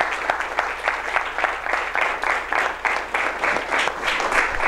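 Audience of students applauding: a steady run of many overlapping hand claps.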